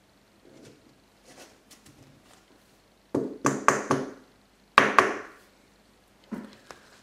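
Hands handling cards and things on a table: a quick run of knocks and taps about three seconds in, two sharper knocks near the five-second mark, and one softer knock near the end.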